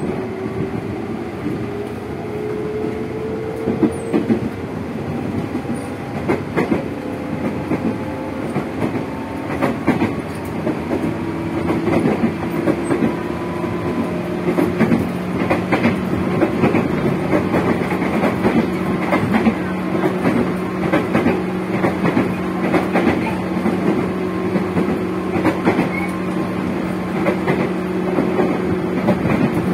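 Loud traction motors of a JR 205 series electric multiple unit, heard from inside the motor car, whining with a pitch that rises through the first half as the train accelerates and then holds steady at speed. Wheels click and clatter over rail joints throughout.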